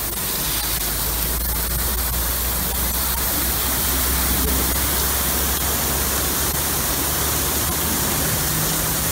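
Steady hiss of a truck wheel wash's water spray jets, with water gushing into the settling tank and a low steady hum underneath.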